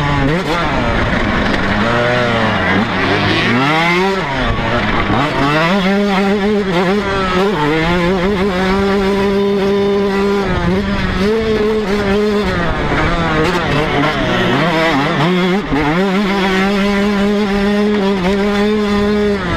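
TM 125cc two-stroke motocross bike's engine running at high revs under race throttle. Its pitch holds steady for stretches at full throttle, then dips and climbs back several times as the throttle is backed off and opened again.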